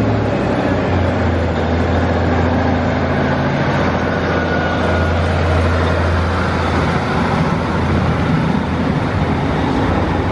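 Northern Class 156 Super Sprinter diesel multiple unit pulling out of the station past the platform: a loud, steady low engine drone over the running noise of the train.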